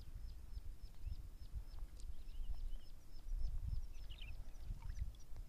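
A small bird calling a short, high, slightly falling note over and over, about three times a second, with a brief twitter a little after four seconds in. Under it runs a low rumble on the microphone, the loudest sound.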